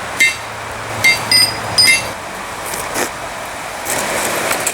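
Hand hammer striking hot steel on an anvil, about four ringing blows in the first two seconds, over a steady rushing background noise, with a dull thump about three seconds in.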